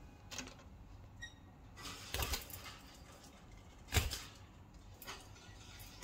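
Budgies in a wire cage: scattered light clicks and scratchy rustles, with one short faint chirp a little after a second in and a louder knock about four seconds in.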